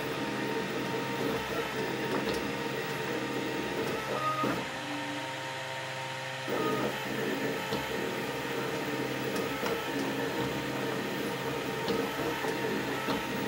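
Velleman Vertex K8400 3D printer printing: its stepper motors whine in quick, shifting tones as the print head moves, over a steady hum. About four and a half seconds in, the motor sounds stop for roughly two seconds, leaving only the hum, then resume.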